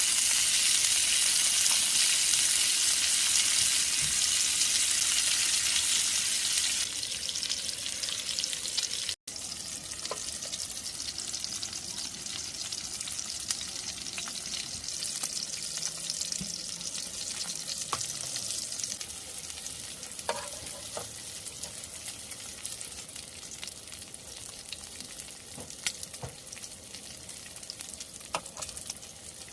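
Food sizzling and frying in a pan, with a steady hiss that drops to a quieter level about seven seconds in, and scattered small clicks of stirring or utensils later on.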